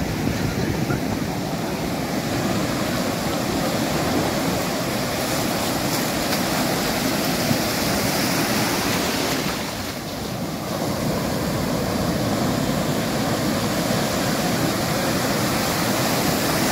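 Sea surf washing on a beach, a steady rushing noise that eases briefly about ten seconds in.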